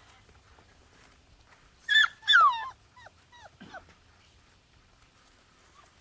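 Young puppy yelping: two loud, high cries that slide down in pitch, then a few shorter, fainter whimpers.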